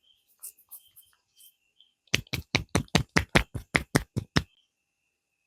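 A quick, even run of about a dozen sharp knocks, about five a second, starting about two seconds in and stopping abruptly a little over two seconds later, over a faint steady high chirring.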